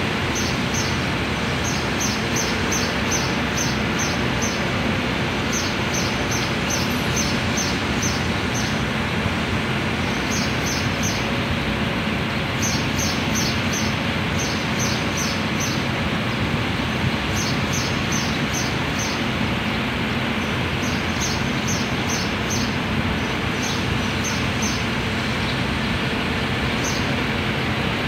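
Steady outdoor rumble of city and rail-yard noise. Over it, a small bird chirps in short, rapid runs every second or two.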